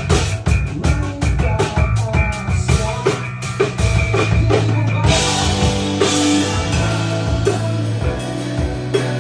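Live rock band playing with a drum kit and electric guitar. For about the first five seconds the drumming is busy and rapid. Then a cymbal wash rings over held, sustained chords.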